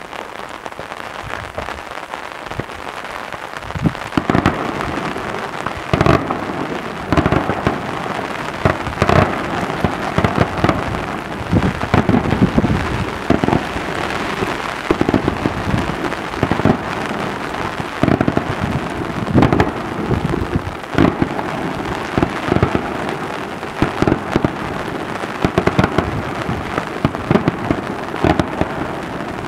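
Daytime fireworks display: a fast, irregular run of booming reports with rolling echoes, starting about four seconds in, over a continuous crackling hiss.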